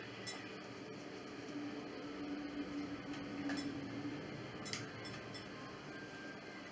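Faint scratching and rubbing of a black Sharpie marker being worked over small silver screw heads in a metal frame bracket, with a few small clicks. A faint steady hum sits underneath for the first few seconds.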